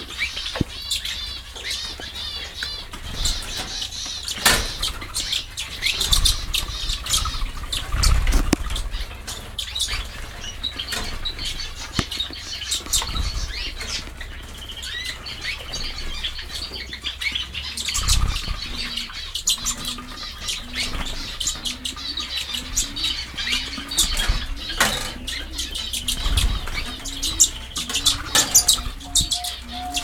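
Many small aviary finches chirping and twittering together, with fluttering wingbeats and sharp clicks among them and a few low rumbles. From about two-thirds of the way through, a low note repeats about once a second beneath the chirping.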